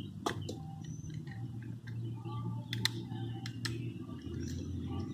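Plastic housing of a Chevrolet Impala power window master switch clicking as its parts are snapped together by hand: several sharp clicks, some in quick pairs, over a steady low hum, with faint bird chirps.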